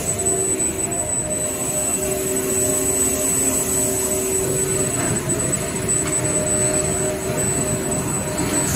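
Toilet paper roll production line running at speed: a steady, dense machine noise with a low hum and a thin high whine over it.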